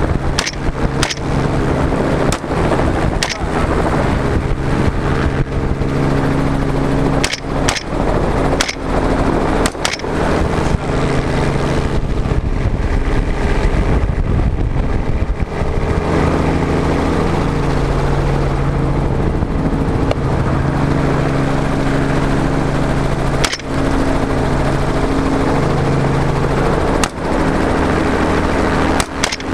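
Semi-automatic AR-style rifle fired about a dozen times from a helicopter, most shots in the first ten seconds and a few more near the end. The helicopter drones steadily underneath, with wind rushing past.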